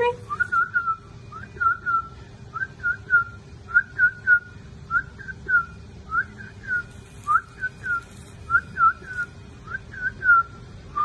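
A person whistling short, high chirps in quick pairs and triplets, repeated about once a second.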